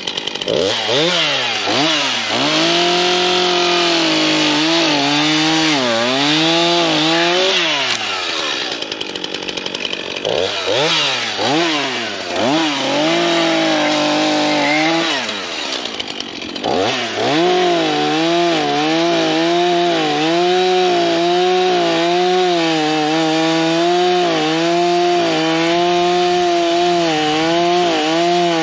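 STIHL two-stroke chainsaw revving and cutting willow wood, its engine pitch rising and sagging under load. It drops back to a lower speed twice, about a third of the way in and again a little past halfway, then revs up for a long, steadier cut.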